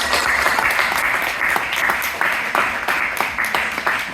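Audience applauding, dense clapping that starts to thin out into separate claps near the end.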